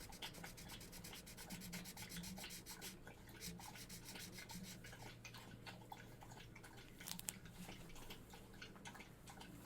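Felt-tip marker scribbling back and forth on paper, faint and close: rapid strokes, about ten a second, for the first few seconds, then slower, sparser strokes.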